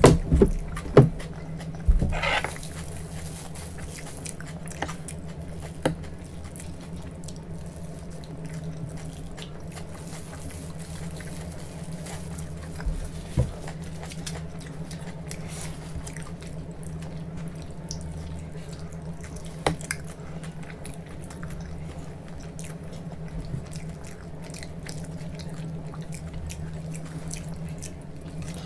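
Close-miked eating: biting into a roll and chewing, with scattered wet mouth clicks and a few louder knocks in the first couple of seconds, over a steady low hum.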